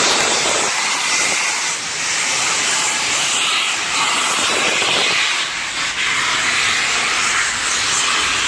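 Union Pacific 4014 Big Boy articulated steam locomotive hissing loudly as it pulls past, steam blasting from its open cylinder cocks in uneven surges. The cocks are open to clear condensed water from the cylinders while the engine gets under way.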